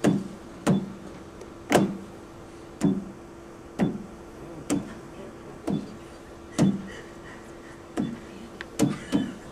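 Single key presses on a large keyboard fitted with a keyguard, typed slowly with one finger: a sharp click with a low knock about once a second, over a steady low hum.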